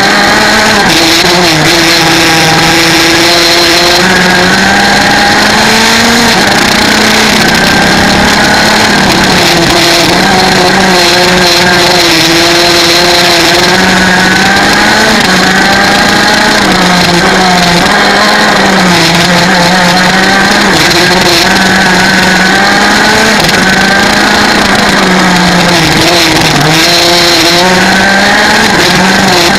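125cc two-stroke kart engine at racing pace, loud and unbroken, its pitch rising and falling again and again as it is driven through the corners and down the straights, heard from on board the kart.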